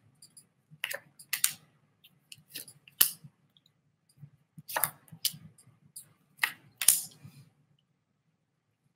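A deck of tarot cards being shuffled by hand: a string of short, sharp card snaps and slaps at irregular intervals, dying away about a second before the end.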